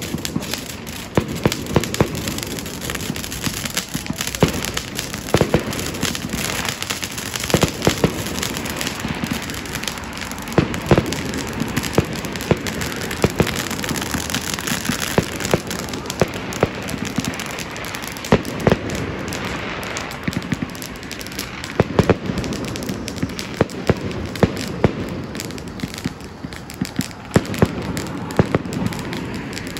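Fireworks going off: the fizzing hiss of ground spark fountains, with frequent sharp cracks and pops scattered through it.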